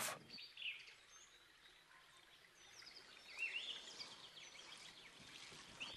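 Faint bird chirps over a low outdoor background hiss: short rising-and-falling calls about half a second in, then a run of them from about three seconds on.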